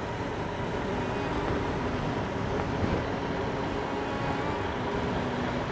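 Steady outdoor road noise, a low rumble of wind and traffic, that swells slightly in the middle, with faint background music tones underneath.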